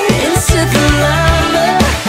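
Upbeat pop soundtrack music: a melody over bass notes and a steady beat.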